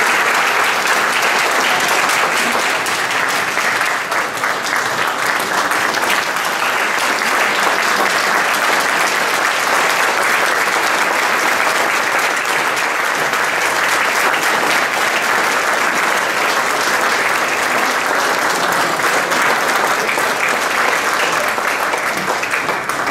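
A large audience applauding steadily and at length, a standing ovation with many hands clapping at once.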